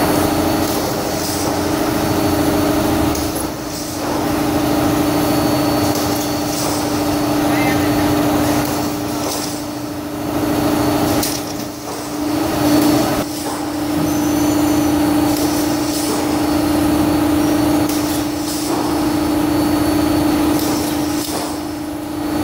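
Roller conveyor line for seedling plug trays running: a steady machine hum, broken every few seconds by short clunks as the trays are moved and stacked.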